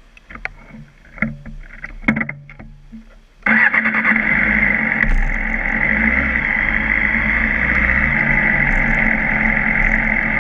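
A few knocks and clicks of handling, then a motorcycle engine catches suddenly about three and a half seconds in and runs steadily at an even pitch.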